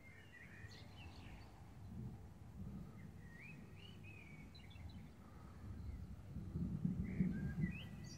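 Small birds chirping in short, quick phrases over a low, uneven outdoor rumble that swells toward the end.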